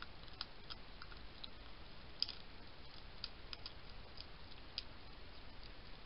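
Hedgehog eating from a plastic feeding bowl: irregular, sharp crunching clicks, the loudest about two seconds in, over a faint steady hiss.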